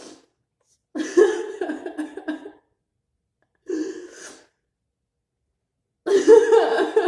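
A woman crying: three bouts of sobbing with silent gaps between them, the middle one short and quieter.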